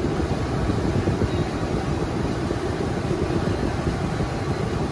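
Automatic tunnel car wash heard from inside the car: a steady rush of water jets spraying onto the windshield and body.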